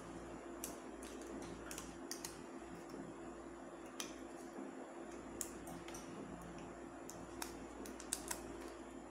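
Faint, irregular clicks and crackles of fingers handling a small piece of sticky-backed aluminum foil, over a steady low hum.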